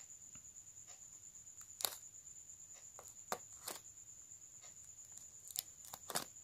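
Razor blade slitting and scratching the clear plastic shrink-wrap on a phone box: a few faint, sharp scrapes and crinkles, about two seconds in, twice around three and a half seconds, and again near the end.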